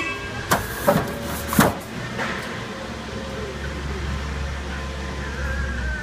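24-gauge sheet-metal flat stock knocking three times as it is pushed into the entry guide of a roofing-panel roll former, followed by a steady low hum that starts about halfway through and stops at the end.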